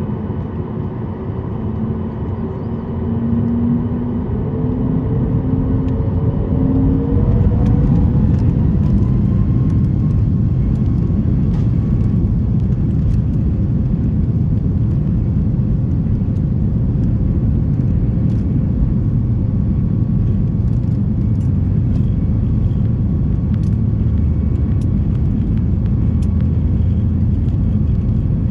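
Boeing 737 MAX 8's CFM LEAP-1B turbofans spooling up to takeoff thrust: a whine rises in pitch and the level climbs over the first several seconds. Then a steady loud rumble with frequent small rattles and knocks runs through the takeoff roll, heard from inside the cabin.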